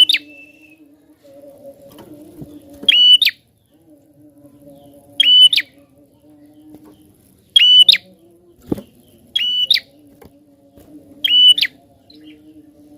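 Prinia (prenjak) calling: a loud, sharp, short note repeated about every two seconds, six times, over a faint steady low drone, with one click around nine seconds in.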